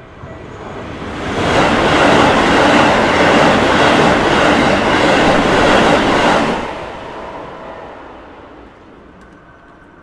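Red Keikyu electric train passing through a level crossing at speed. It swells in about a second in, stays loud until about six and a half seconds in, then fades away as it moves off.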